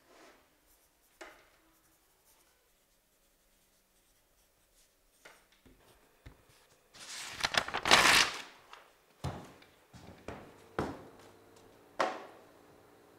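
Pen scratching faintly on a notepad, then a loud rip of paper as a page is torn out, about seven seconds in. A few sharp knocks follow, the last as a magnet is pressed onto a fridge door.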